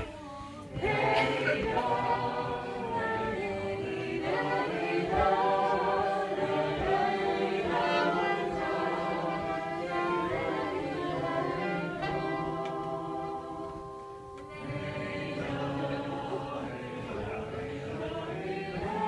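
Live acoustic music: a soprano saxophone playing slow, wavering sustained notes, with other sustained tones sounding alongside it. It quietens briefly about three-quarters of the way through.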